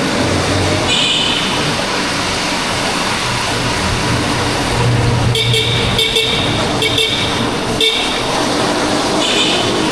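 Ride on a Yamaha Crosser 150 single-cylinder motorcycle in city traffic: steady engine, wind and traffic noise. A vehicle horn honks four short times in a row from about halfway through, with one brief beep about a second in and another near the end.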